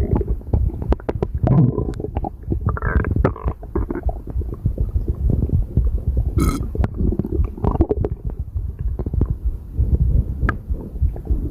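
Bloated stomach and intestines gurgling and rumbling during active digestion, with many short pops and gurgles throughout.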